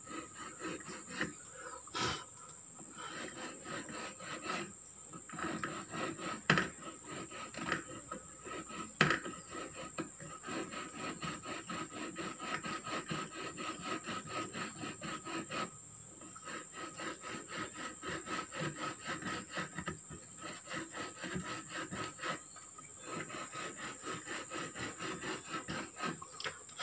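Small hand saw with a thin blade worked back and forth across the edge of a wooden board in quick rasping strokes, with a few short pauses, cutting a groove for a snare's cord.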